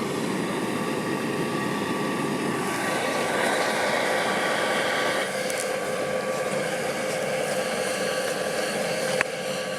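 Steady drone of the hearth furnace's air blower, a whine with a noisy rush. One sharp knock stands out near the end, likely a hammer blow on the iron.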